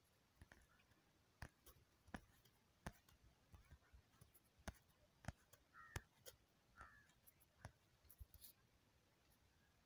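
Near silence with faint scattered clicks, and two faint short calls about six and seven seconds in.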